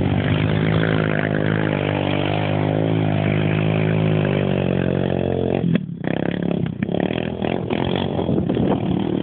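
Quad bike (ATV) engine running and revving, its pitch rising and falling as the rider throttles around the field. About six seconds in there is a sudden thump, after which the steady engine note gives way to rough, choppy noise.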